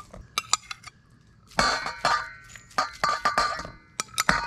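A fork and a plate clinking and scraping against a stainless steel mixing bowl as food is scraped and tipped into it. There is a series of sharp clinks, each ringing briefly.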